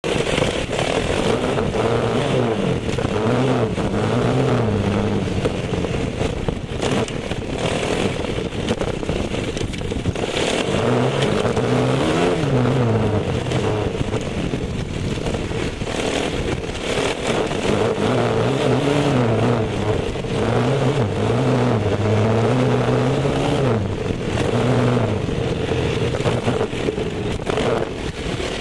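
Dirt bike engine being ridden hard on a trail, revving up and easing off again and again as the rider works the throttle and gears.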